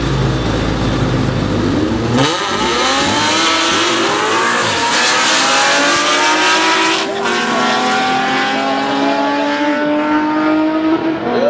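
A 1975 Chevrolet Camaro with a 6.2-litre LS3 V8 and a 2.8-litre V6 hatchback at the drag-strip start line: a low idle rumble, then about two seconds in both engines go to full throttle on the launch. Their pitch climbs steadily as they accelerate away, and the sound grows more distant near the end.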